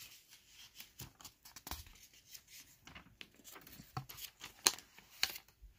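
Pages of an old Bible being turned and handled: soft paper rustles and light ticks, with one sharper tap about three-quarters of the way through.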